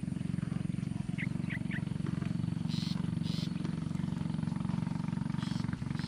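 A steady low pulsing drone throughout, like a motor running. About a second in come a few short, high, falling chirps from birds, and around three and five seconds brief hissy bursts.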